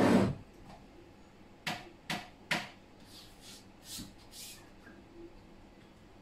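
Handling of a CR30 PrintMill belt-bed assembly: a clatter as it is stood up on its end, then three sharp clicks about half a second apart and a few soft scrapes.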